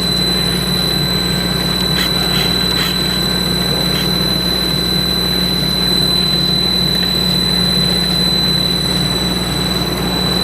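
Norton gap-bed cylindrical grinder running under power with a steady hum and a constant thin high whine.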